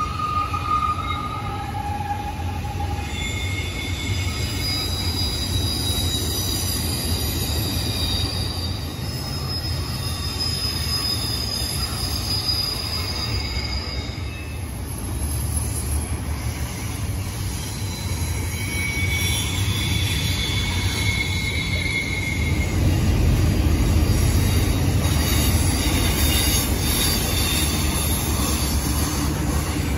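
Double-stack intermodal freight train cars rolling past with a steady low rumble, their wheels squealing in high thin tones that come and go. The rumble grows louder near the end.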